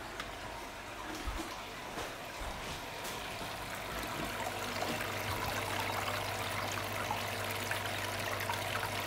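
Mark's Bottle Washer running: its pump jets water up through the nozzles into upturned beer bottles on the rack, giving a steady trickling, splashing water sound over a low steady hum.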